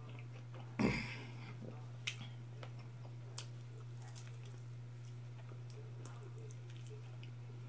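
Quiet sounds of eating fried chicken by hand: chewing and small mouth clicks, with one louder crunch about a second in, over a steady low hum.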